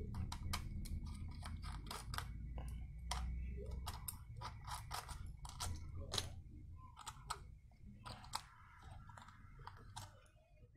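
Small screwdriver turning out the belt-clip screws on the back of a Baofeng BF-T1 handheld radio, with plastic parts handled as the clip comes off: light irregular clicks and scrapes, thinning out near the end.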